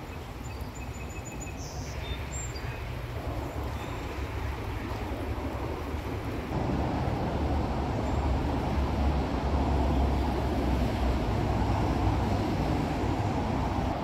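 A small creek flowing over stones: a steady rushing noise with a low rumble, and a few faint high bird chirps about a second in. About six and a half seconds in, the sound jumps abruptly to a louder, fuller steady rush.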